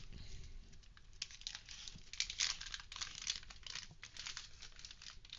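Packaging being opened by hand: faint, irregular crinkling and tearing.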